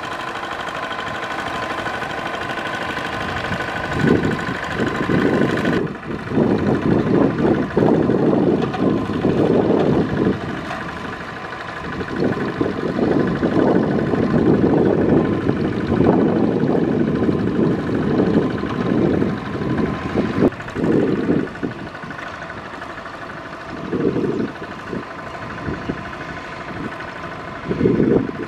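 Single-cylinder diesel engine of a walking tractor running steadily as it works through a flooded paddy, with louder, rougher stretches coming and going through much of it.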